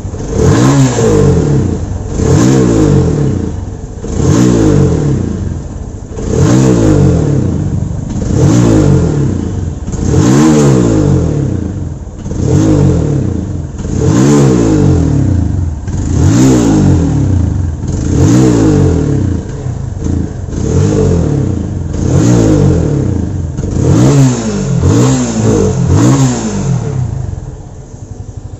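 Fuel-injected Yamaha motorcycle engine revved by hand on the throttle, rising and falling about every two seconds, then dropping back to idle near the end. The bike has a misfire ('missing') and pickup problem.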